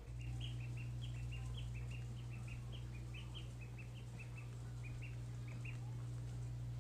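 Ducklings peeping in quick short chirps, several a second, over a steady low hum.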